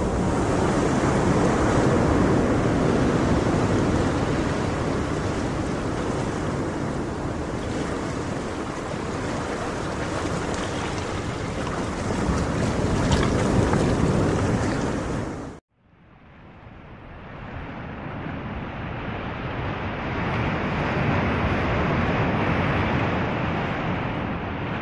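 Ocean waves washing in a steady rush. It cuts off suddenly about two-thirds of the way through, then fades back in sounding duller.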